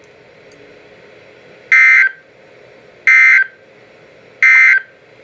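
Three short buzzing bursts of SAME digital data tones from a NOAA Weather Radio alert, about a second and a half apart, over faint radio hiss: the end-of-message code that closes an emergency alert broadcast.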